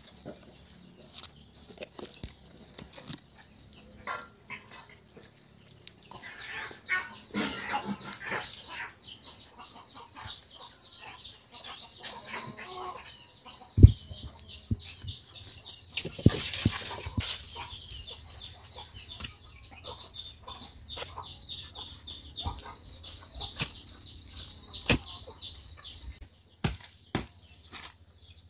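Chickens clucking and flapping their wings among scattered knocks and clicks, with one sharp knock near the middle. A steady high hiss runs through most of it and stops abruptly near the end.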